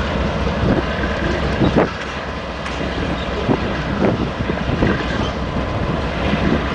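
Slow-moving freight train of diesel locomotives and loaded flatcars: a steady low rumble broken by irregular clicks and knocks from the wheels on the rails.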